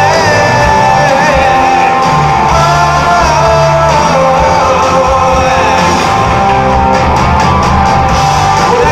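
Rock band playing live at full volume: electric guitar, bass guitar and drums.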